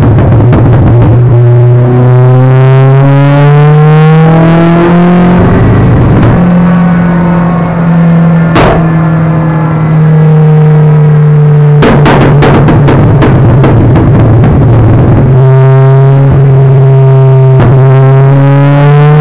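Mitsubishi Lancer Evolution IX's turbocharged four-cylinder engine running hard on a chassis dyno, its pitch climbing in long sweeps twice during power pulls. There is one sharp crack near the middle.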